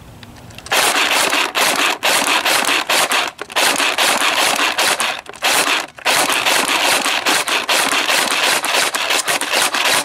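Black Ops Cottonmouth AK-74 battery-powered airsoft rifle firing on semi-auto: a fast string of sharp shots starting about a second in and running on with a few short breaks.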